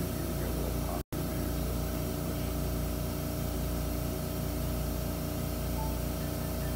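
Steady motor hum from powered surgical equipment, with a fast regular pulse underneath. The sound cuts out completely for an instant about a second in.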